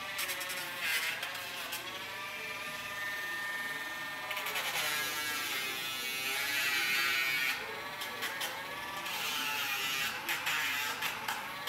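Dremel rotary tool grinding a dog's nails. Its electric motor whirs with a pitch that repeatedly dips and recovers as the grinding bit bears on the nail.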